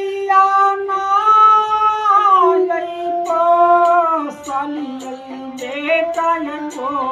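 A high female voice singing a slow melody with long held, gliding notes, accompanied by a plucked string instrument.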